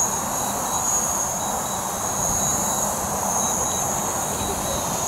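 DJI Mavic Pro quadcopter's propellers giving a steady high whine as it hovers low and comes down to land, with wind rumbling on the microphone.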